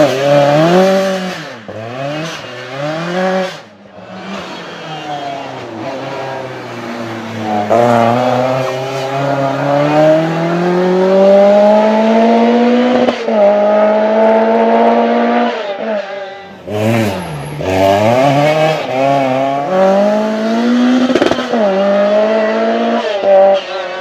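Lancia 037 Group B rally car's supercharged four-cylinder engine at full throttle on three passes. The pitch climbs in long sweeps and drops sharply at each upshift, with short lifts off the throttle between.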